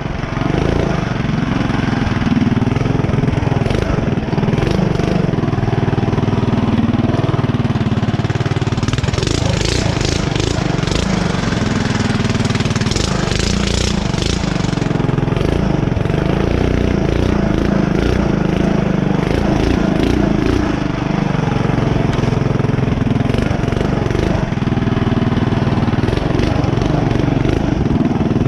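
Mini bike's small engine running under throttle, its pitch rising and falling as the throttle is worked. A stretch of scratchy hiss and clicking runs through the middle.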